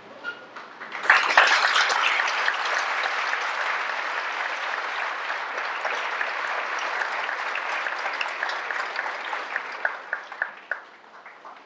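Audience applauding. It swells sharply about a second in and thins out to a few scattered claps near the end.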